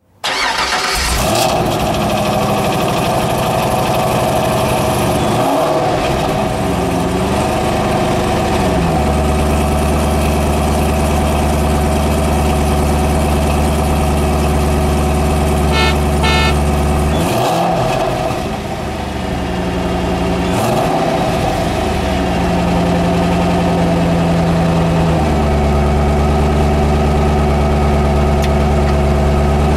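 Hot rod engine running at idle and revved several times, its pitch sliding up and back down with each rev.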